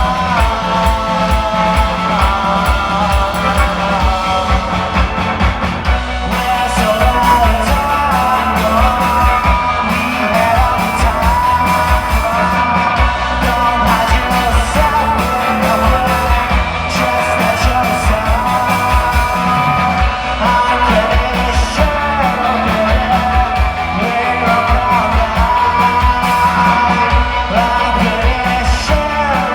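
Pop-rock band playing live with a lead singer over a steady drum beat and bass.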